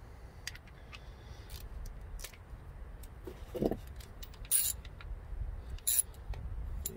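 Sockets and a ratchet extension being handled and fitted together: scattered light metallic clicks and clinks, with a couple of sharper clinks in the second half.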